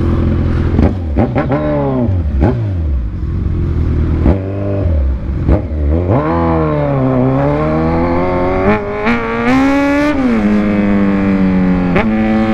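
Kawasaki Z1000's inline-four engine pulling away from idle: a few short throttle blips that rise and fall as it moves through slow traffic, then a longer pull climbing for about four seconds, a sudden drop in pitch at a gear change, and a steady cruise.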